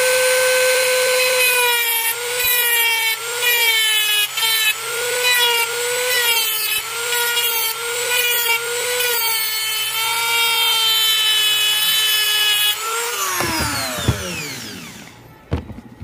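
Mini rotary grinder with a thin cutoff disc running with a steady high whine, its pitch dipping and wavering as the disc is pressed against a rusted screw head to heat it. About 13 seconds in it is switched off and the whine falls away as it spins down.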